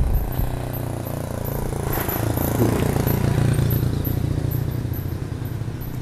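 A motor vehicle's engine running steadily, swelling a little around the middle and easing off again.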